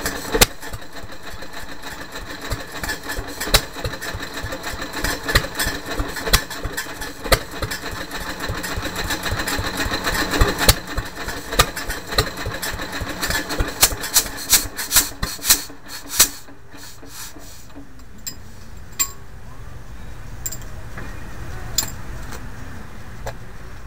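1928 Fairbanks-Morse 2 hp type Z hit-and-miss stationary engine running, with fast, slightly irregular firing and clatter. About two-thirds of the way through the firing stops and only a few scattered clicks follow as it shuts down.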